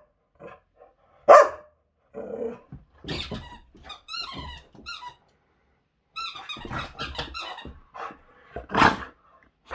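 Boxer dog barking twice, once early and once near the end, while squeezing a squeaky toy in its jaws. The toy squeaks in two quick runs in between.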